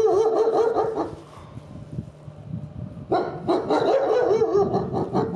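Wolves howling, several wavering voices overlapping, in two bouts: the first dies away about a second in and the second starts about three seconds in.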